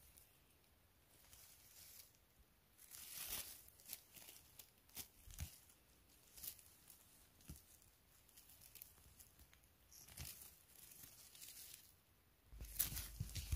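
Faint rustling and crackling of moss and forest litter as mushrooms are picked and handled, with scattered small snaps. A louder bump and rumble of handling noise comes near the end.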